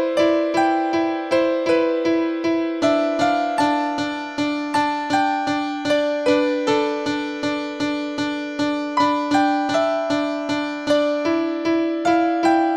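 Background music: a piano-like keyboard plays a simple melody over evenly repeated notes, about two and a half a second.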